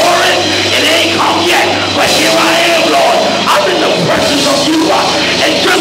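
Church band playing loud, driving praise-break music, with drums and a steady bass line.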